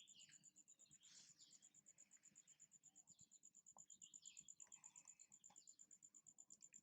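Faint, steady high-pitched pulsing of a chirring insect, about a dozen pulses a second, with scattered faint short chirps and squeaks over it.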